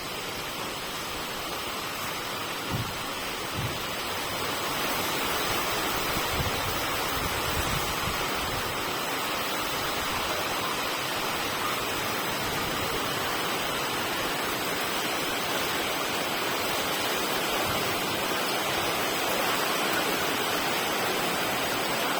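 Wind sound effect: a steady rush of wind, with a few short low rumbles in the first few seconds, growing slightly louder about four seconds in.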